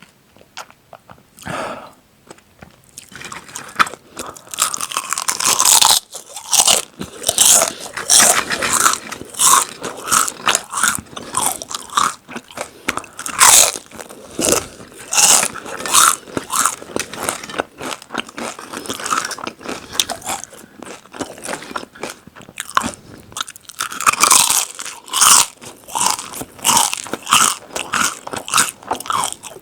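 Potato and tortilla chips being bitten and chewed close to the microphone: rapid, loud, crisp crunching. It starts about three seconds in after a short quiet gap.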